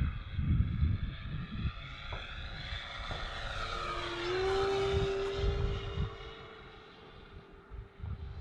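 Electric RC model T-6A Texan II flying past. Its three-blade propeller and onboard scale-sound speaker give an aircraft-engine drone that builds to its loudest in the middle, with a steady tone joining about four seconds in, then fades as the plane moves away. Wind buffets the microphone at the start and again after about five seconds.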